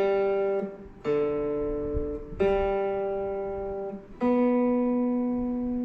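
Gretsch G2657T Streamliner Centerblock guitar: single strings plucked one at a time, four notes of different pitch, each left to ring out and fade. The strings are being checked one by one for tuning after a chord and use of the tremolo.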